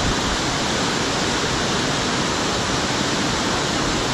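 Steady roar of Hareshaw Linn waterfall in spate, a continuous rushing of falling water with no breaks.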